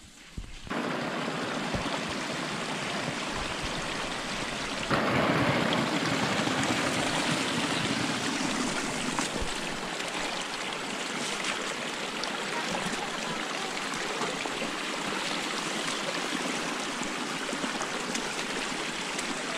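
Steady rushing of flowing water, like a stream, starting abruptly just under a second in and growing louder about five seconds in.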